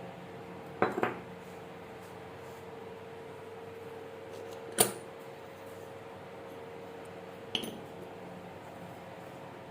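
Kitchen utensils and dishes clinking three times over a steady faint hum: a double knock about a second in, the loudest, ringing clink about five seconds in, and a lighter one near the end.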